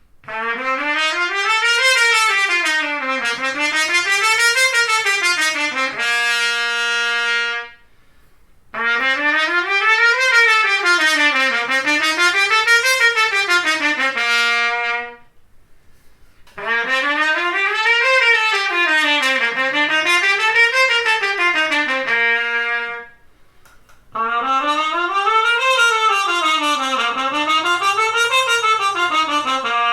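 Trumpet played with a series of different mutes. The same phrase is repeated four times, each a scale run up and down twice ending on a held low note, with short pauses between takes, so that the change in timbre from one mute to the next can be heard.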